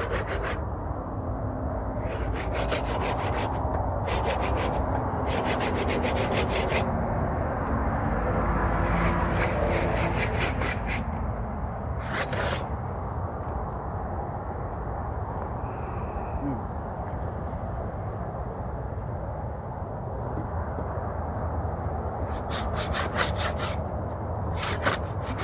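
A saw cutting through wood, rasping steadily, with insects buzzing in short pulsing bursts now and then.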